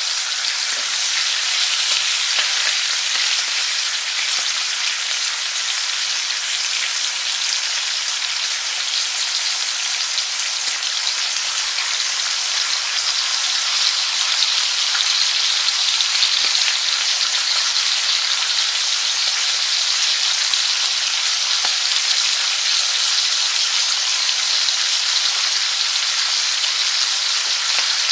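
Food frying, a steady sizzle with fine scattered crackles and no breaks.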